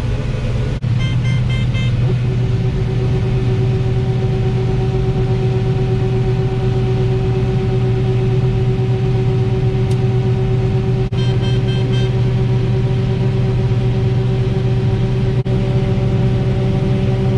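Combine harvester running steadily under load, heard from inside the cab as a loud, even drone with a steady hum. Two short runs of quick electronic beeping, one about a second in and one about eleven seconds in.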